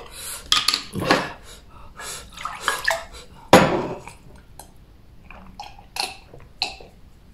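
A person drinking from a glass mug: short clinks and liquid sounds, a sudden loud sound about three and a half seconds in, then small gulps and swallows as the drink goes down.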